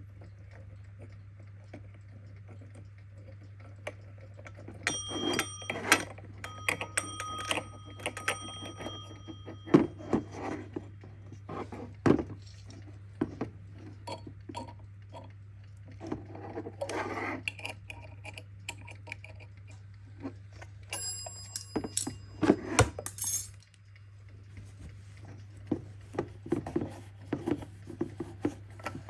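Twin bells of a Kienzle mechanical alarm clock ringing in two short spells, with ringing metallic tones over rapid clicks. Knocks and handling of the clock come between them.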